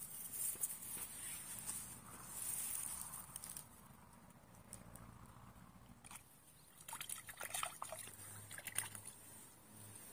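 Faint light splashing and dripping of water with scattered soft clicks, busiest in the last few seconds, as a hooked climbing perch thrashes at the surface and is lifted out.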